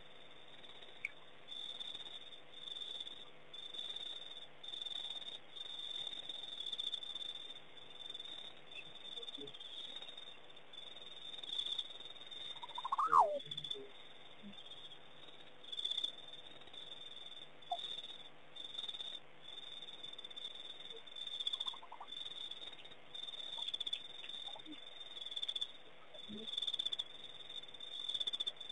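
Night chorus of calling insects and frogs: short high chirps repeating irregularly, about once a second. About halfway through comes one louder, brief sound that rises and falls in pitch.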